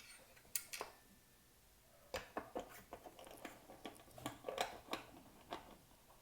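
Faint handling noise: a couple of sharp clicks, then a run of small clicks and rustles as a speaker and its mounting bracket are handled and fitted together.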